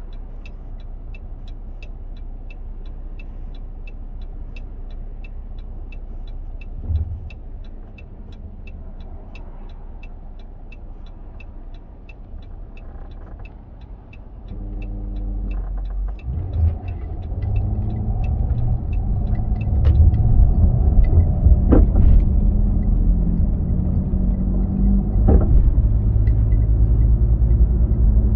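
Car idling at a traffic light with a steady ticking of about two to three clicks a second, typical of a turn signal. About halfway through, the engine revs up as the car pulls away, and the engine and road noise grows louder, with two sharp knocks near the end.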